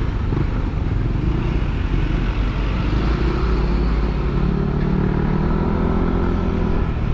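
Yamaha NMAX 155 scooter's single-cylinder engine through an aftermarket ROB1 Racing exhaust, running hard at full throttle in a top-speed run, its note holding steady at high revs.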